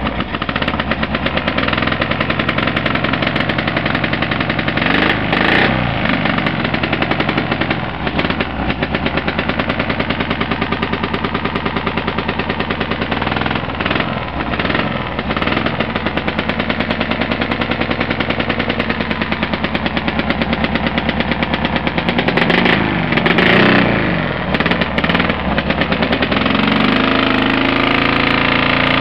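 A 1950 Vincent Black Lightning's 998 cc V-twin racing engine running with a rapid, even firing beat. It is revved up and back down several times.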